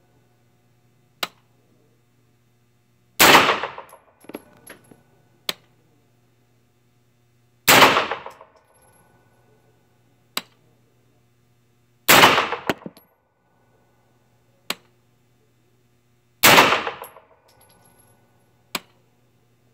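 Single shots from a PSA 9mm AR pistol, four in all, about four and a half seconds apart, each with a long echoing tail. Between them come shorter, sharper cracks, with a few small clinks after the second shot and a low steady hum underneath.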